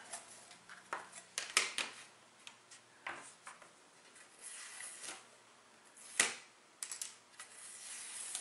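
Small scattered clicks and taps of a toothpick and fingers working masking tape loose on a model ship's flight deck, with soft rustling as the tape peels away. The loudest is a single sharp tap about six seconds in.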